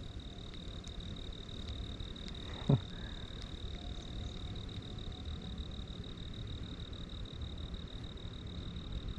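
A steady, high-pitched insect trill that goes on without a break, over a low rumble of wind on the microphone, with one short thump about a third of the way through.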